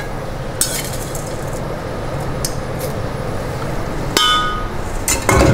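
A metal spoon clinks and taps against stainless steel kitchenware while liquid-nitrogen-frozen raspberries are spooned into a small steel container, with a few sharp clicks. About four seconds in there is a ringing metallic clang, and another hard knock at the very end.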